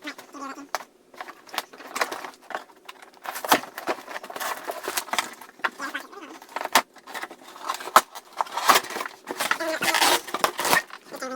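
Long cardboard shipping box being cut and pulled open with a knife: irregular scraping, tearing and crinkling of cardboard and packaging, with scattered knocks and clatters.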